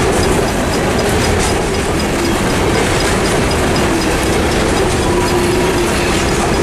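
Loaded coal hopper cars of a freight train rolling past through a grade crossing, the wheels clattering over the rails with a wavering squeal. Under it, the crossing's Railroad Supply Co. (RRS) mechanical bell rings in rapid, even strokes, about four a second, with a flat, somewhat rough tone.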